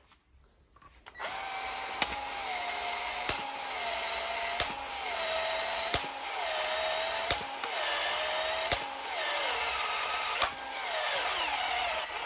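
Milwaukee cordless PEX expansion tool running as it expands a PEX pipe end and ring, starting about a second in. Its motor whine sags and recovers in repeated cycles, with a sharp click roughly every 1.3 seconds as the head cycles. Near the end the motor slows and winds down, a sign of the battery going dead.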